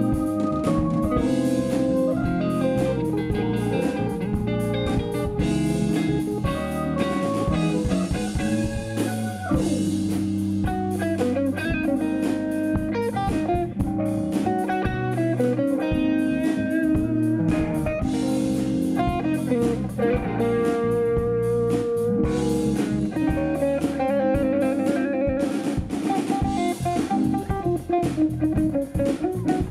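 Live instrumental band playing: electric guitar, bass guitar, drum kit and keyboards together.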